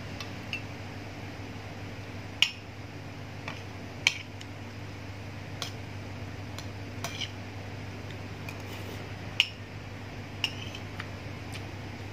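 Metal spoon and fork clinking and scraping against a ceramic plate and bowl while eating rice and soup: about a dozen sharp clinks at irregular intervals, four of them louder, over a steady low hum.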